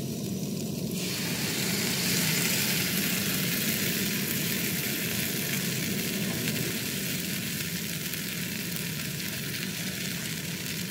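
Crêpe batter poured into a hot, oiled non-stick frying pan begins sizzling about a second in, loudest just after and easing a little. Underneath is the steady rush of a Primus Gravity gas canister stove's burner.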